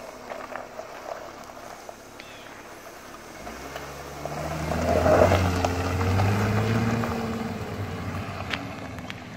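Jeep Wrangler driving past: its engine rises in pitch as it accelerates, is loudest about five seconds in, then fades as it drives away.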